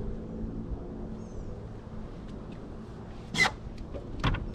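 A distant engine hum of steady low tones fades out about two seconds in, under faint bird chirps. Then come a few sharp knocks and rattles as a fishing rod is grabbed from its holder on the boat's gunwale, the loudest about three seconds in.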